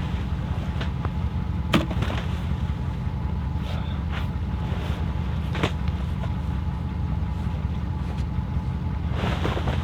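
Steady low rumble of wind buffeting the microphone, with a few sharp knocks, the loudest about two seconds in.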